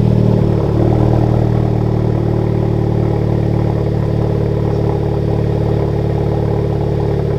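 Honda Civic Type R's turbocharged 2.0-litre four-cylinder idling steadily through a newly fitted Tomei aftermarket exhaust, moments after being started.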